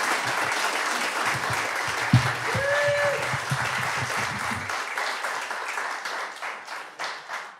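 Audience applauding at the end of a talk, with a short pitched call from the crowd partway through and a single thump about two seconds in. The clapping tails off near the end.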